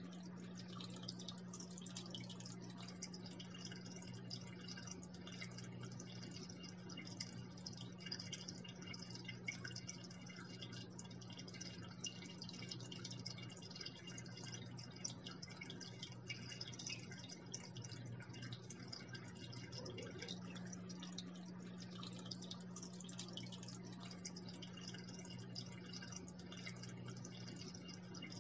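Water falling and trickling into an aquarium, a constant spatter of small drips and splashes over a steady low hum.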